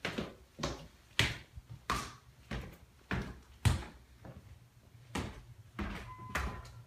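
Footsteps on a bare wooden subfloor, about one step every 0.6 s. A faint high beep is heard briefly near the end.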